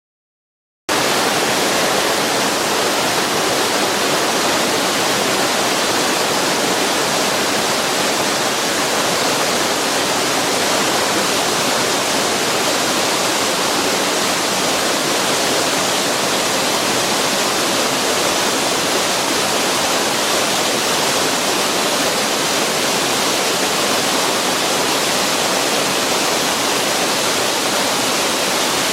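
Waterfall: a steady, even rush of falling water that sets in abruptly about a second in.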